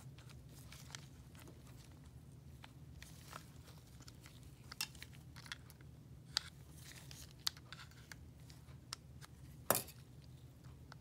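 Light clicks and taps from the plastic and metal parts of a Gilson Pipetman L multichannel pipette as its piston and nose-cone assemblies are fitted back into the housing, about one a second, with a sharper click near the end. A faint steady low hum runs underneath.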